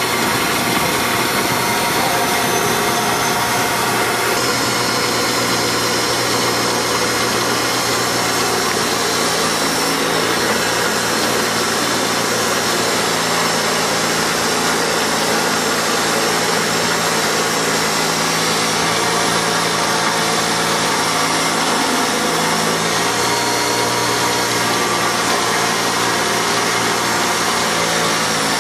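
Central Machinery 8-inch bench grinder running steadily with a steel bar held against its spinning wheel: a continuous motor hum under an even grinding hiss.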